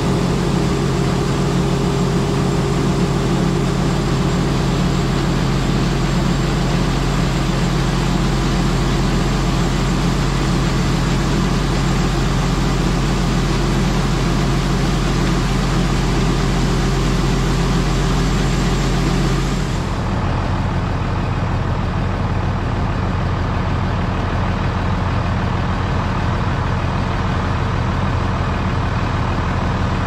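International Harvester 1486 tractor's diesel engine running steadily under load while the grain cart's auger unloads corn into a semi trailer, with a steady hiss over the engine. About two-thirds of the way through, the sound changes suddenly to a duller, lower engine drone without the hiss.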